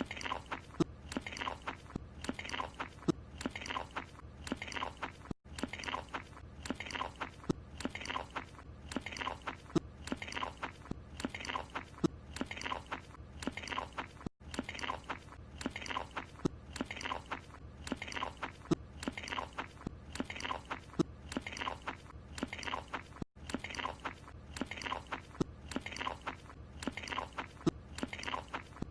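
Cartoon character chewing a croissant: a steady run of loud, wet chewing and mouth-smacking sounds. The same short eating clip repeats, with a brief gap about every nine seconds where it restarts.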